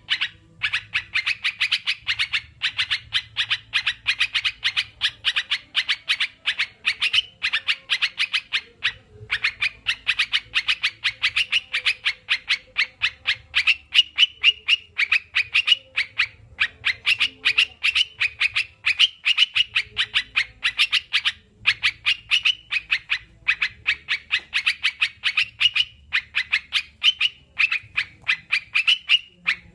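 Yellow-vented bulbuls (crucukan) singing and chattering nonstop: a dense stream of rapid, bright chirps, broken by short pauses twice.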